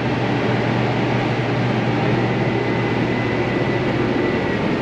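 John Deere CP690 cotton picker running steadily while harvesting, a constant machine drone with a strong low hum and a faint high whine.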